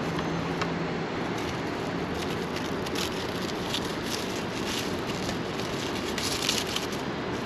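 Steady background noise with a few light clicks and metallic clinks from hand tools and parts being fitted during assembly of an electric dirt bike.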